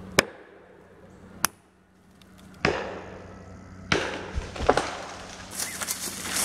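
Axe chopping into a standing hardwood tree trunk during felling: two sharp single chops about a second apart, then another chop, and from about four seconds in longer, rougher crunching of wood as the cut trunk gives way.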